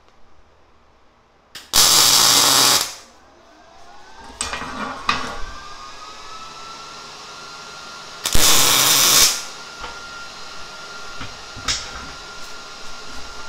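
MIG welder laying two short welds, each a buzzing, crackling arc about a second long, one about two seconds in and the other about eight seconds in. A few light clicks and knocks fall between them.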